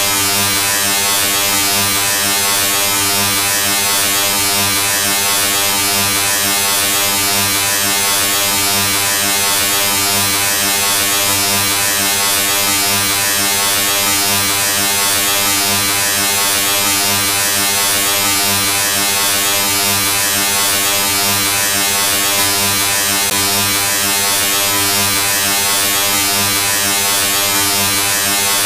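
A steady electric buzz: a low drone with many evenly spaced overtones and a hiss on top, unchanging throughout.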